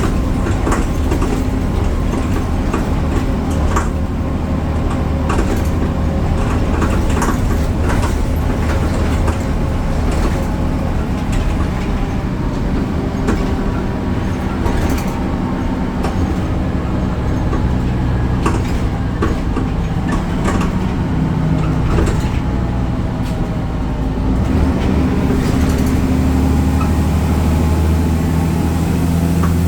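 BredaMenariniBus Avancity Plus city bus running, its Deutz diesel engine a steady low drone under frequent rattles and knocks. About 25 seconds in, the low engine note gets louder.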